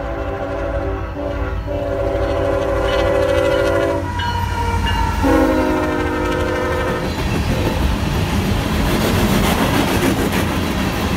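Diesel freight locomotive's several-note air horn blowing as it approaches and passes, the chord dropping in pitch partway through. Then the empty coal hopper cars roll past with wheels clacking over rail joints and a rising rumble.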